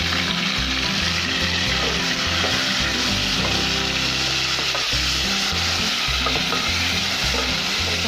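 Chopped tomatoes, green chillies and ginger-garlic paste sizzling steadily in hot oil with fried onions in an aluminium pot, stirred with a wooden spoon. This is the start of frying the tomatoes down until they soften.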